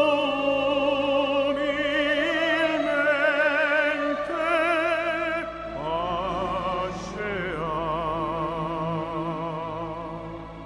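Background music: operatic singing, long held notes with wide vibrato, and a new phrase sliding up into a higher note about six seconds in.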